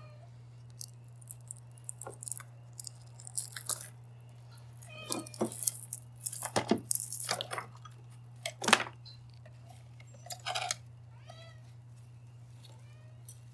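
A cat moving about close by: scattered rustles, clicks and crunching handling noises, with a few faint meows, over a steady low hum.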